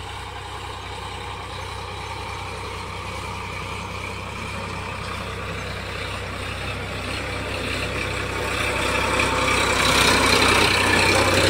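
Sonalika 745 tractor's three-cylinder diesel engine running steadily under load while pulling a disc harrow through ploughed soil. It grows louder over the last few seconds as the tractor comes close.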